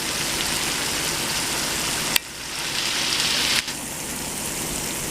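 Sausages sizzling as they fry in a pan, a steady hiss. The level drops abruptly twice, about two seconds in and again about three and a half seconds in.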